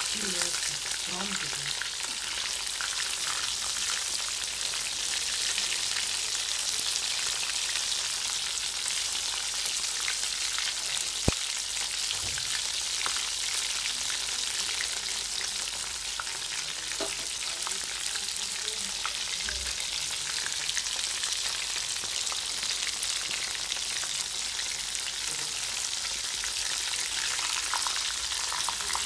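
Breaded fish fingers frying in hot oil, a steady sizzle, with a spatula stirring and turning them in the pan. A single sharp click partway through.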